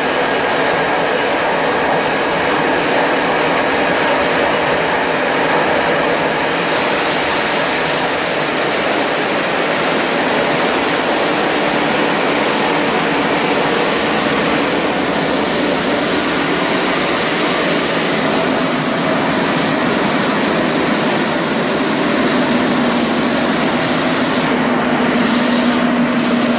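Steady running noise of a moving electric-hauled train, wheels on rails and rushing air, heard from the end of the carriage coupled right behind the locomotive. The hiss grows a little brighter about a quarter of the way in.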